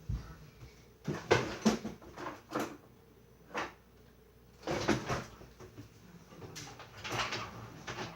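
Handling noises: a series of short knocks and rustles a second or so apart, like a cupboard being opened and closed and things being picked up.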